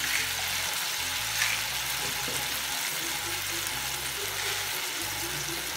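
Shallots cooking in tamarind water and oil in a kadai, giving a steady sizzling hiss with a few faint pops as the theeyal gravy simmers.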